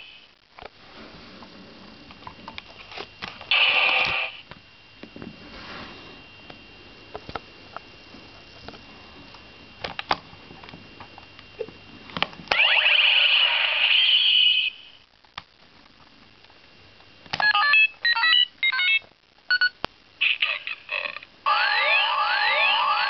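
Kamen Rider Ryuki V-Buckle toy belt playing its electronic sound effects between plastic clicks of handling: two hissing electronic bursts, then a quick run of short electronic beeps, and near the end a repeating rising siren-like wail.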